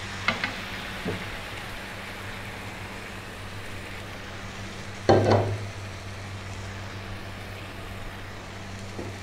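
Lamb curry frying in a nonstick pan with a steady sizzle, a wooden spatula clicking and scraping against the pan near the start, as coconut milk and then water are poured in. A brief loud clatter about five seconds in is the loudest sound, over a steady low hum.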